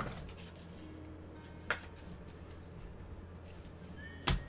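Trading cards being handled on a tabletop: a faint tick about a third of the way in and a sharper click near the end as gloved hands pick up the stack, over a steady low hum.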